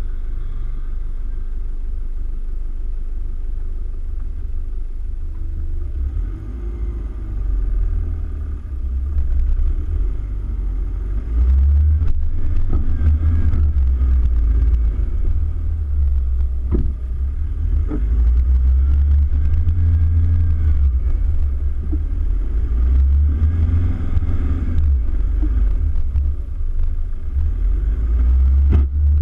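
Toyota Hilux Vigo driving over soft sand dunes: a deep, steady rumble of engine and wind across the bonnet-mounted camera, growing louder about twelve seconds in, with a single sharp knock near the middle.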